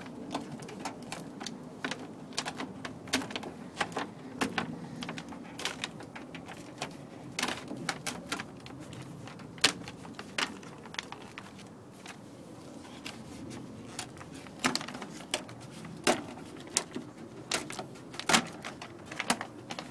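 Plastic moisture barrier sheet being peeled off a car door's sticky adhesive, crinkling with many irregular sharp clicks and crackles.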